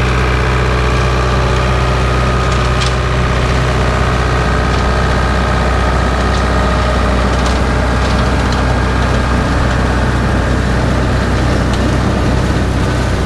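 Ford farm tractor engine running steadily under load, driving a pull-type forage harvester that is chopping green grass and blowing it into a wagon. A few faint ticks come through over the steady drone.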